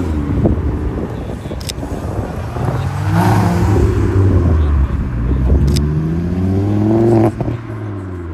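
A car's engine revving hard as it accelerates away, rising in pitch twice. The second run cuts off suddenly about seven seconds in as the throttle is lifted.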